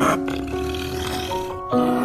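Background music with long held notes, and a brief noisy burst right at the start.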